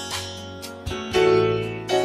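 Background instrumental music: notes struck one after another, each ringing and fading.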